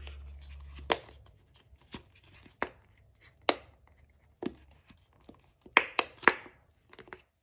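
Small toys and packaging being handled on a tabletop: irregular sharp taps and clicks, with three in quick succession about six seconds in.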